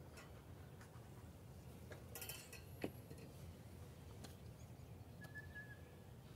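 Faint, sparse clicks and light knocks of wooden Layens hive frames being handled and lifted out, the sharpest click about three seconds in, against a very quiet background.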